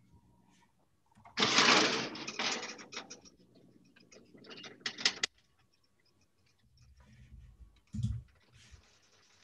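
Metal oven rack and baking sheet rattling and scraping, with a spatula clicking against the pan, for about four seconds; a short thump near the end.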